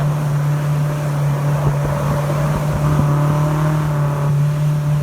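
Speedboat engine running steadily at speed, a loud unbroken drone at one constant pitch, heard from aboard the boat.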